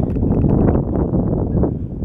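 Wind rumbling on a handheld camera's microphone: a loud, low, blustery rumble.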